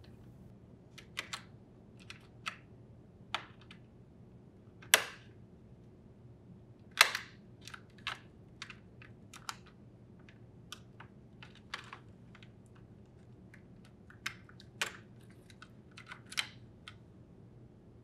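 Scattered small plastic clicks and taps as a refrigerator door buzzer is unclipped from its plastic display housing and its wire-harness connectors are worked free with a small screwdriver. Two sharper snaps come about five and seven seconds in.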